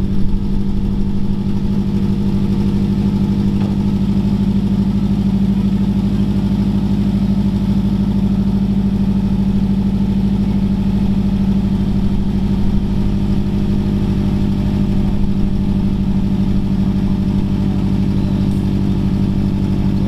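Turbocharged Subaru boxer flat-four idling steadily just after its first cold start following an engine install.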